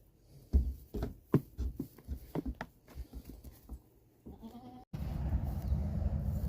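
A run of sharp knocks and clatters over about three seconds, then a goat gives one short bleat about four seconds in. A sudden break follows, and then a steady low hum.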